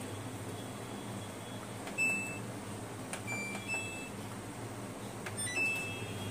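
Samsung top-loading washing machine's control panel beeping as its buttons are pressed: a short electronic beep about two seconds in, two more around three and a half seconds, and a longer one near the end, each a slightly different pitch. A steady low hum runs underneath.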